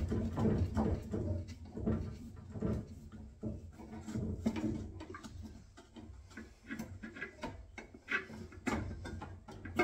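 A pipe slice being worked around an old copper pipe to cut it: irregular metallic clicks and scrapes, denser and louder in the first couple of seconds, then sparser.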